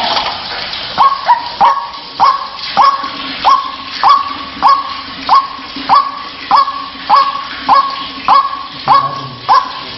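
White-breasted waterhen (ruak-ruak) calling: a steady run of repeated "kruwak" notes, each falling sharply then held, a little under two a second, starting about a second in.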